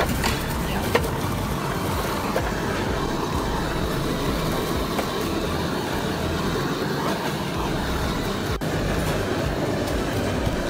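Handheld butane blowtorch burning steadily as its flame browns grated cheese on a stone mortar, with a few light clicks in the first two seconds.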